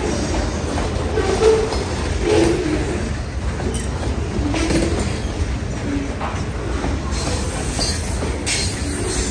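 Freight train hopper cars rolling past on steel wheels: a steady low rumble with short wheel squeals now and then and a few clicks over the rail.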